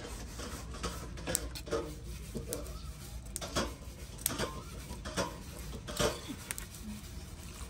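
Metal kitchen tongs clicking and knocking irregularly against a large aluminium pot as leafy greens are stirred and turned in boiling water.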